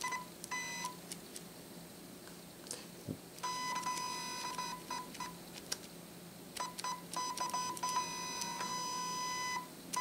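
Shanny SN600N speedlight's motorized zoom head whining in a steady tone as it zooms, in two short spurts near the start, a broken run in the middle and a longer run of about three seconds near the end, with clicks of the flash's buttons in between.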